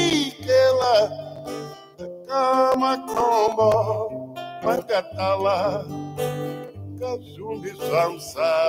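A man singing to his own acoustic guitar: short sung phrases over a steady plucked and strummed accompaniment with a low bass line.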